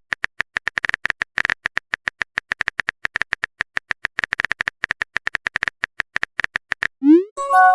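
Rapid, irregular run of sharp clicks, a typing sound effect, about a dozen a second. Near the end a short rising sweep, then a ringing chime tone.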